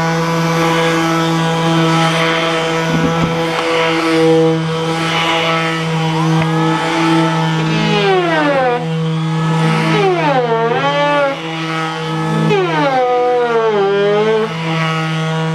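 Makita 18V cordless random orbital sander running against plywood edges, a steady motor whine. From about halfway through, part of the sound wavers and dips in pitch again and again as the pad is pressed and worked around the hull's corners.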